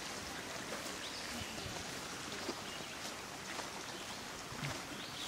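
Outdoor ambience: a steady hiss with a scattering of light clicks and knocks.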